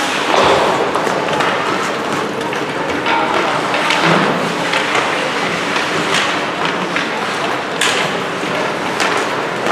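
Ice hockey play on a rink: a steady scraping of skate blades on the ice, with a few sharp clacks of sticks and puck and dull thuds.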